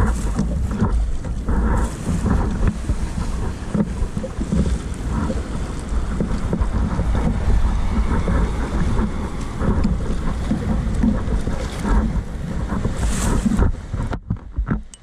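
Wind buffeting the microphone: a loud, uneven low rumble with rustling above it. It drops out briefly about a second before the end.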